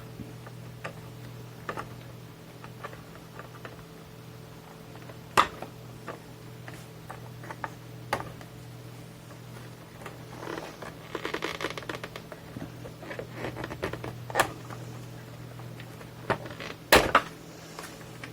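Scattered clicks and knocks of hands handling the opened cassette multitrack's circuit boards and casing, with a stretch of scraping and rustling about halfway through. A steady low hum runs underneath.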